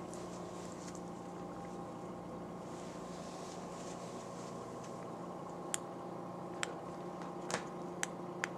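A steady low hum of fixed tones, with five short sharp clicks spread through the second half.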